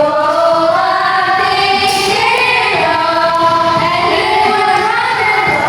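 Song with a high singing voice holding long, sliding notes over musical accompaniment.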